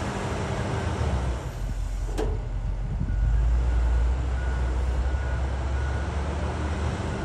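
Case 721 wheel loader's diesel engine running with a steady low drone. It grows louder about three seconds in, as the loader raises its bucket with the hydraulics under load. A single sharp clank comes a little after two seconds.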